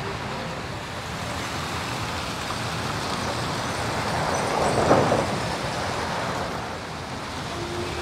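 Steady city street traffic noise, with one vehicle passing, loudest about five seconds in.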